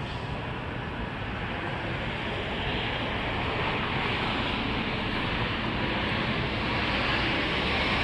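Outdoor background rushing noise that swells gradually louder toward the end, with no siren tone sounding.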